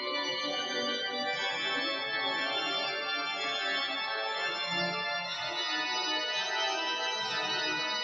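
Organ playing recessional music in full, sustained chords.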